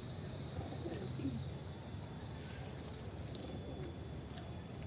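Insects trilling on one steady, unbroken high-pitched note.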